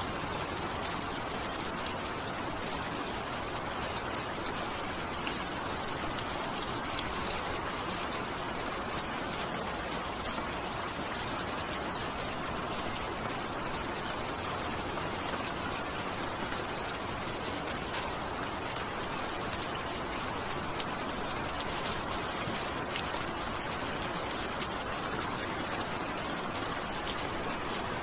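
Steady rain falling, an even hiss with scattered sharp ticks of individual drops.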